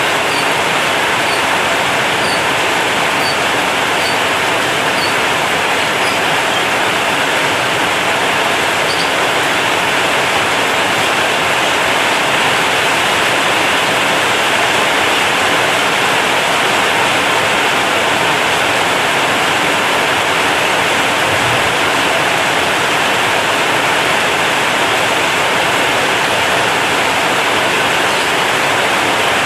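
Heavy rain falling steadily on a corrugated zinc roof, a dense even hiss with no break.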